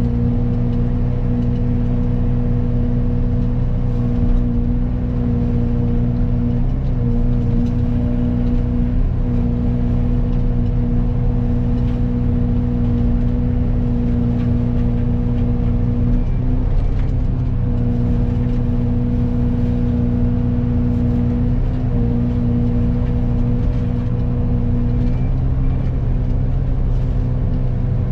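Excavator running with its Fecon forestry mulcher head, a steady engine drone with a whine from the spinning mulcher. The pitch sags briefly a few times as the head takes on brush.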